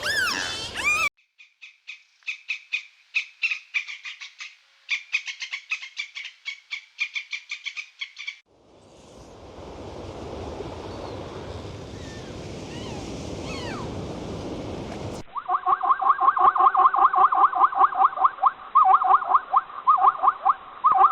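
A run of different animal calls: rapid trains of high, short chirps for several seconds, then a steady hissing noise, then loud, fast pulsed calls for the last six seconds or so.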